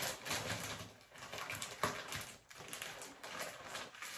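A plastic shower cap crinkling and rustling as it is stretched and pulled over twisted hair, in short irregular crackles.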